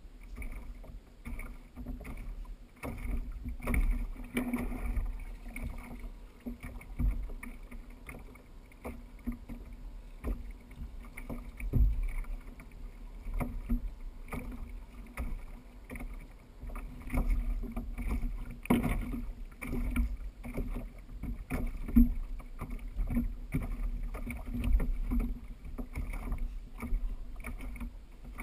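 Fishing kayak afloat on choppy water: water lapping against the plastic hull, with irregular knocks and thumps as the seated angler shifts and handles his gear.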